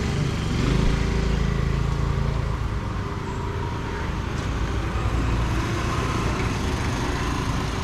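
Street traffic: motor vehicle engines running close by, one passing about a second in, over a steady low road rumble.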